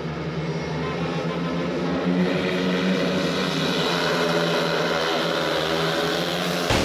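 Engine running at a steady pitch, slowly growing louder, then cutting off abruptly near the end.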